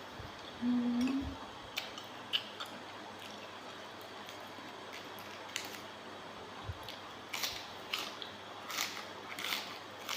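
Close-up mouth sounds of someone eating raw seafood: wet chewing with scattered lip smacks and clicks, more frequent in the second half. There is a brief low hum about a second in.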